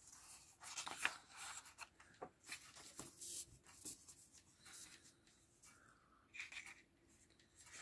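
Faint rustling of thin patterned paper sheets being handled, shuffled and laid flat on a cutting mat, with scattered short rustles and soft taps.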